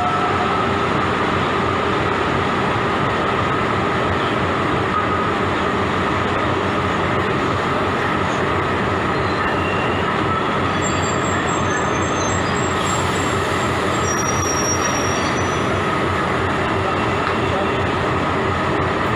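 Vaigai Superfast Express passenger coaches rolling slowly along the platform as the train draws in to a stop, a steady rolling noise of wheels on rail, with faint high brake squeals in the second half.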